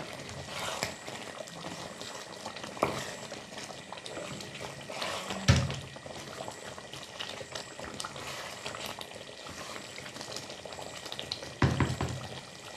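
A pan of thick egg and chicken curry simmering and bubbling as a spatula stirs through it, with a few knocks of the spatula against the pan, the loudest about five and a half seconds in and another near the end.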